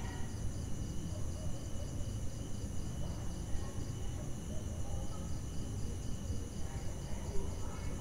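Night ambience of crickets chirping in a steady, evenly pulsing chorus over a constant low rumble.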